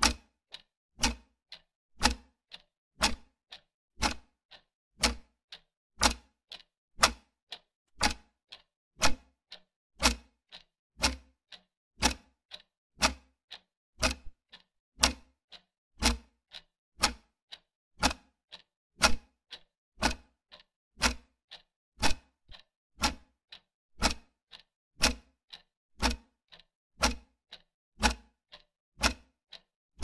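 Wall clock ticking steadily, about two ticks a second, alternating a louder and a softer tick.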